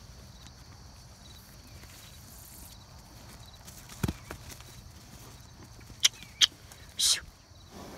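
Morgan horses crowding right up to the microphone, with soft movement sounds and a few sharp knocks and clicks of contact: one dull knock about four seconds in, then two clicks and a short rustle near the end.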